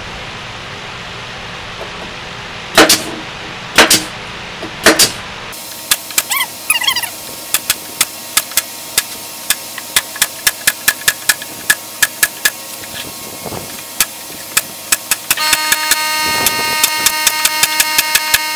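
Pneumatic upholstery stapler firing staples into plywood: three loud shots about a second apart, then a quick run of shots, two or three a second. Near the end a steady droning tone with many overtones comes in under the shots.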